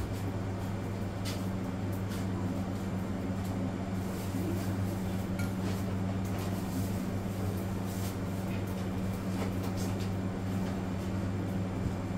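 Scattered clinks of dishes and cutlery, a few single strikes several seconds apart, over a steady low hum.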